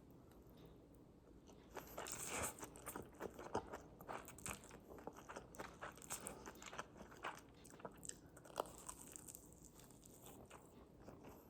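Faint, irregular crunching: crunchy food being bitten and chewed, with many short sharp crunches, thickest in the middle of the stretch.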